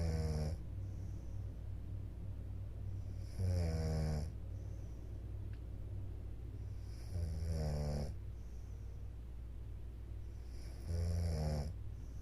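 A woman snoring in deep sleep, one long snore about every four seconds, with a steady low hum underneath.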